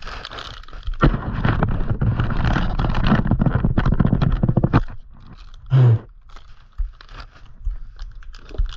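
Hands handling the new grips and their packaging: dense scraping and rustling for about five seconds, then scattered light clicks and a single dull thump just before six seconds in.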